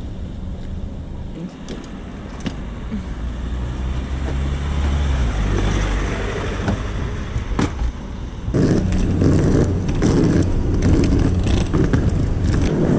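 A vehicle running steadily with a low drone, growing louder and rougher about two-thirds of the way in.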